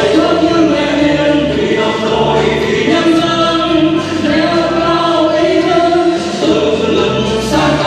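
A mixed group of men and women singing together into handheld microphones, amplified over a hall sound system, with instrumental accompaniment.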